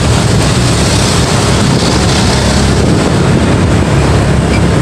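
Steady rush of wind on the microphone of a moving motorcycle, with the motorcycle's engine running underneath.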